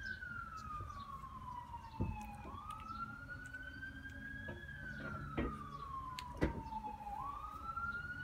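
Emergency-vehicle siren in a slow wail, rising for about two seconds and falling for about two and a half, repeating. A few sharp knocks come through, the loudest about two and six and a half seconds in.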